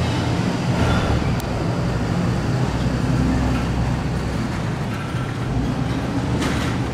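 R62A subway train rolling slowly over the switches of an elevated junction: a steady low rumble, with brief faint wheel squeals about one second in and again around five seconds.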